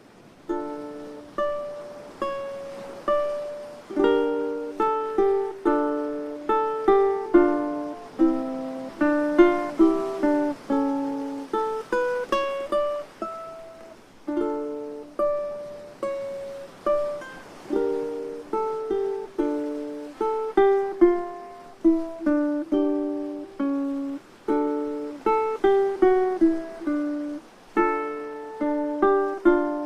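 Ukulele instrumental: a plucked melody over chords in a steady, relaxed rhythm, each note dying away quickly, starting about half a second in.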